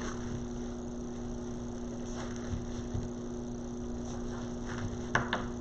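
Steady electrical hum made of two constant tones, with a few faint, soft handling noises now and then.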